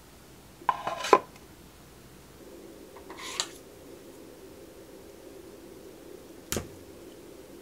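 Wooden tableware being handled on a table: a short clatter about a second in, a brief scrape around three seconds, and one sharp tap near the end as a wooden fork spears a sausage in the wooden bento box.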